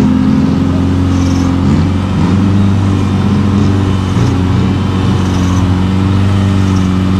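Off-road 4x4's engine running steadily at low revs as the vehicle is winched slowly forward through deep mud.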